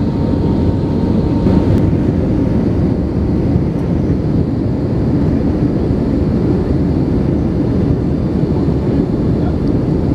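Steady, loud jet engine and airflow noise heard from inside the passenger cabin of an Airbus A319-115, a low, even rumble without breaks.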